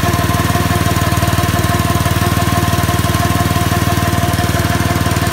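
Small gasoline engine of a NorthStar skid-unit fire pump running steadily with a fast, even beat, the pump holding pressure at about 200 psi.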